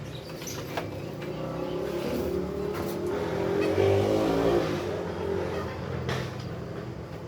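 A motor vehicle's engine running and passing, growing louder to a peak about halfway through and then fading, with a few sharp knocks.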